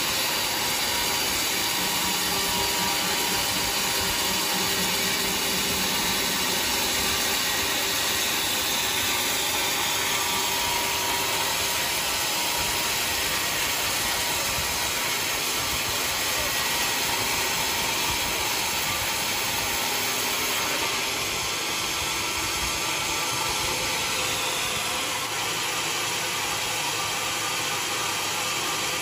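Sawmill saw running and cutting mahogany: a steady, loud mechanical whirring with no pauses, which eases off slightly about two-thirds of the way through.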